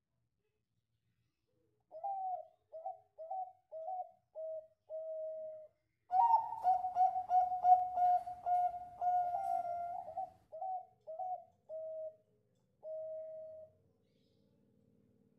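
Caged zebra dove (perkutut) singing its song of short, rapid cooing notes. The song is loudest in the middle and ends on a longer drawn-out note.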